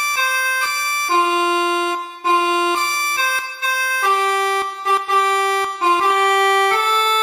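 Basuri 'telolet' multi-trumpet bus horn playing a tune: several reedy notes sound together as chords and change every half second to a second, with a short break about two seconds in.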